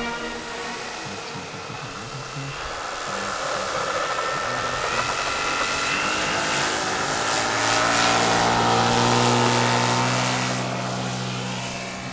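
Large electric-powered RC scale model of an Albatros D.Va biplane on its takeoff run, its motor and propeller rising in pitch and loudness as it speeds up. The sound peaks as the model passes and lifts off, then fades as it climbs away.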